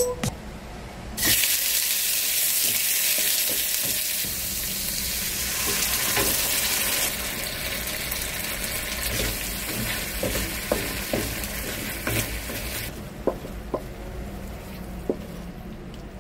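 Mapo tofu sizzling in a frying pan as tofu cubes go into the hot sauce. The sizzle starts loud about a second in, eases off partway through and stops a few seconds before the end. A wooden spatula scrapes and taps against the pan while stirring.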